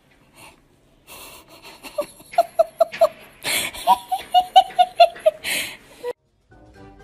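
A person laughing in two runs of quick, high-pitched 'ha-ha' pulses, with a wheezy breath drawn between the runs and after them.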